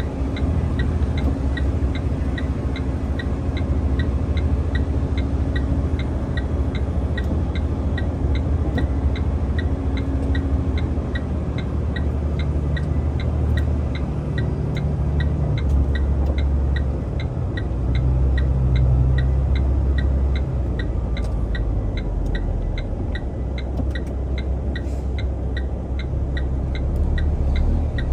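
A heavy truck's diesel engine running under load, heard from the cab, its low rumble shifting in strength, with a steady fast ticking at about two to three a second.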